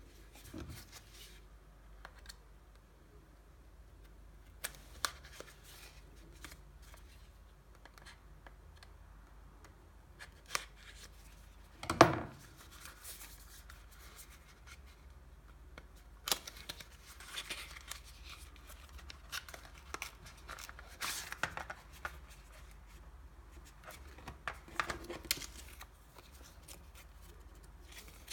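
A small cardboard box being handled and opened by hand, then a folded paper instruction leaflet pulled out and unfolded: scattered rustling, paper sliding and light taps. One sharp knock about twelve seconds in is the loudest sound.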